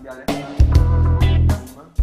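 Background music with a drum beat and a heavy bass line.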